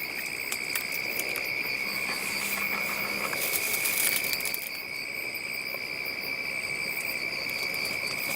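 Night insects trilling steadily: one unbroken high-pitched chorus that holds level throughout.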